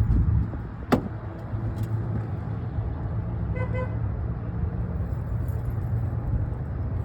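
A car engine running steadily as a low hum, with one sharp click about a second in and a short double beep near the middle.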